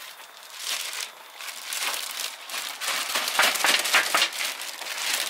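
A clear plastic bag holding cut raw meat crinkling as it is handled. The crackling is irregular and gets louder from about three seconds in.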